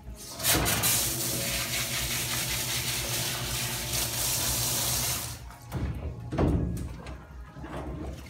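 A handheld grooming-tub hose sprayer jets water onto a wet dog's curly coat in a steady rush, rinsing it. The spray cuts off about five seconds in.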